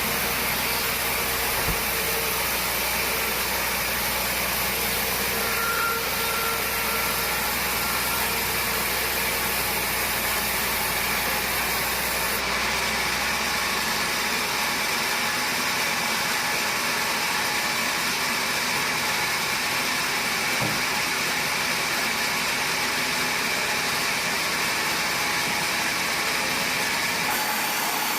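Sawmill machinery running steadily, a dense, even mechanical noise with no distinct strokes or rhythm. Its character shifts slightly about halfway through and near the end.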